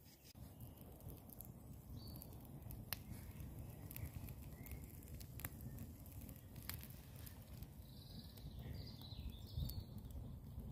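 Quiet woodland ambience with a few sharp, scattered crackles from a wood campfire, and faint bird chirps near the end.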